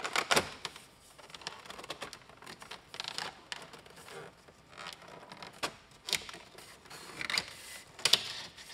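Plastic gauge cluster bezel of an Integra dashboard being worked loose by hand: irregular clicks and scrapes of plastic trim, loudest at the start.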